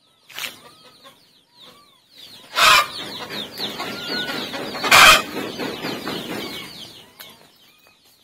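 Chickens calling: a busy stream of quick, high, falling peeps with some lower clucking calls. Two loud sudden bursts come about 2.5 and 5 seconds in.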